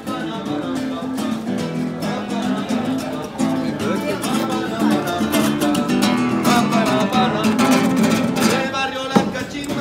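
Acoustic guitar music playing continuously, with voices of passers-by mixed in.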